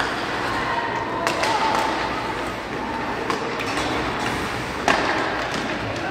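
Ice hockey game in an arena: a few sharp cracks of sticks and puck against the ice and boards, the loudest a little before the end, over a steady hubbub of voices.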